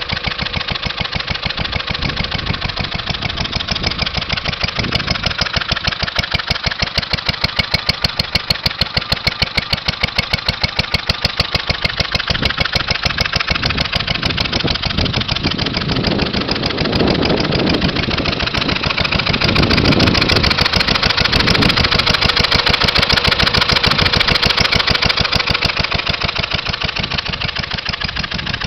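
Briggs & Stratton Model Q single-cylinder gasoline engine of a 1928 Lindsay portable air compressor, running with a steady beat of firing strokes while it warms up after starting. It gets louder about two-thirds of the way in and eases off near the end.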